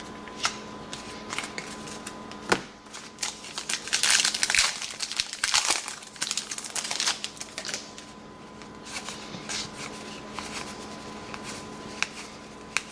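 Trading cards being handled: a card-pack wrapper crinkling for a few seconds around the middle, with scattered light clicks and slides of cards before and after.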